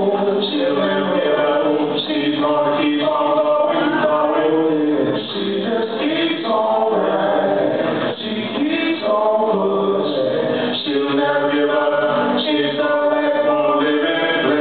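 Male vocal trio singing in harmony into microphones, several voices at once holding and shifting sustained notes.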